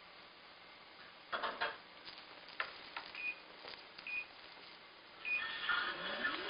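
Several light clicks and knocks, with three short high electronic beeps about a second apart; music from a television swells in near the end.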